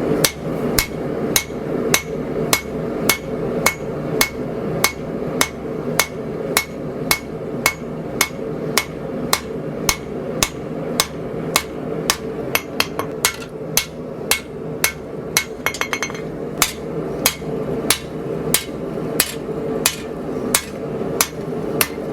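Hammer blows forging a hot 80CRV2 steel blade on an anvil, in an even rhythm of about two strikes a second, with a run of quicker, lighter taps around the middle. A steady hum runs underneath.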